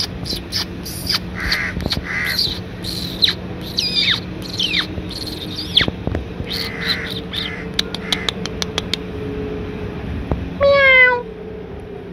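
Birds calling: short chirps, falling whistled notes and rough caws, with a quick run of clicking chips, over a low steady hum. About ten and a half seconds in comes one loud drawn-out call, falling slightly in pitch, lasting about half a second.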